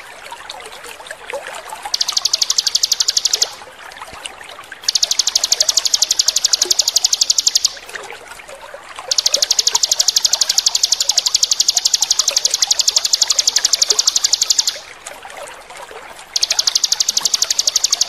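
A ciblek (bar-winged prinia) sings its rapid buzzing 'ngebren' trill, a fast, even train of high notes, in four long bursts that last from about one and a half to nearly six seconds. Under it and in the gaps runs a steady trickle of water.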